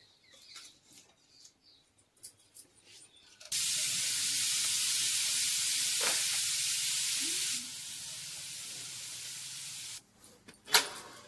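Batter frying in hot oil: a steady sizzle that starts suddenly about three and a half seconds in, drops to a lower level partway through, and cuts off abruptly. Light clicks and scrapes come before it, and a single sharp click near the end.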